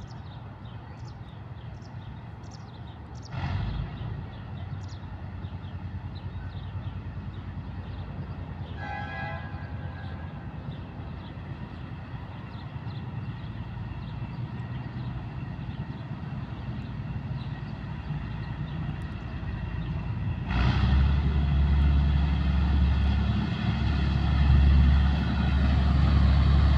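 TU2 narrow-gauge diesel locomotive idling at a distance, with a brief horn toot about nine seconds in. About twenty seconds in, its engine suddenly opens up, much louder and deeper, as the locomotive pulls away under power and puts out exhaust smoke.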